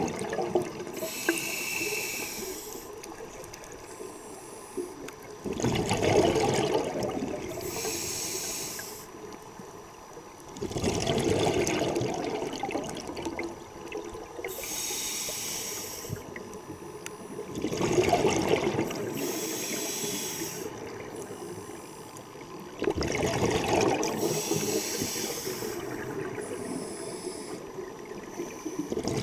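Scuba diver breathing through a regulator underwater: a hiss on each inhale, then a louder burst of bubbling exhaust on each exhale, in a steady cycle about every six seconds.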